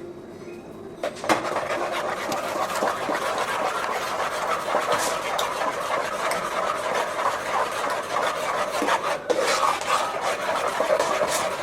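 A spoon stirring thick porridge in a pot, scraping against the pot with many small clicks, starting about a second in and running on steadily.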